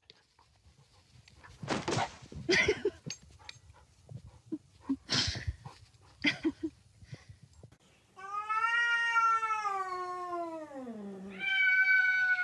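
Cat yowling: a long drawn-out call that drops in pitch at its end, then a second shorter call. Before them come a few short, sudden noisy bursts.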